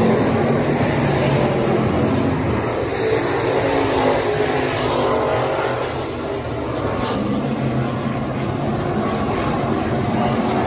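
Racing stock car engines running hard at speed, a steady loud engine note that dips briefly about six seconds in.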